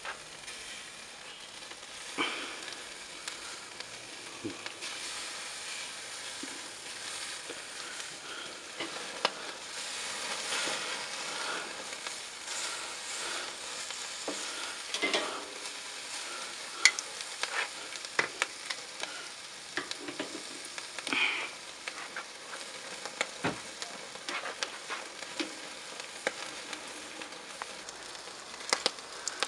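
Bacon sizzling on a charcoal grill's grate directly over the coals, a steady hiss of cooking fat. Scattered sharp clicks of metal tongs turning the bacon come through now and then.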